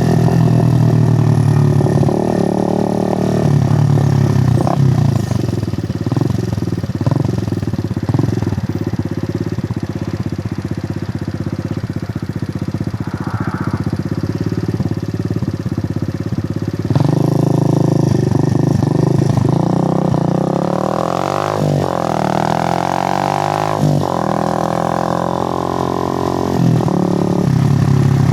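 Suzuki GN125's single-cylinder four-stroke engine running under way. Its note rises and falls as the bike speeds up and changes gear, with the busiest run of revving about two-thirds of the way through.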